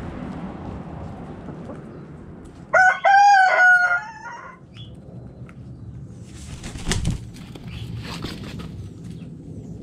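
A rooster crows once, about three seconds in: a short first note, then a long held note that falls slightly in pitch. Hens cluck low underneath, and a sharp knock with some rustling comes a few seconds later.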